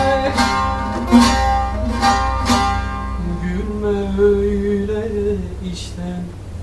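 Turkish folk song music: a plucked string instrument strums several strong strokes over a steady low bass, then a long held melody line steps up and down near the middle.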